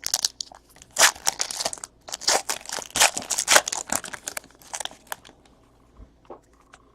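Foil trading-card pack wrappers crinkling and tearing as packs are opened and handled, a dense crackle that dies down about five seconds in, leaving a few faint clicks.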